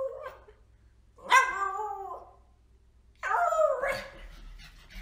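Husky vocalising: two short, howl-like calls with wavering pitch, about a second in and again about three seconds in.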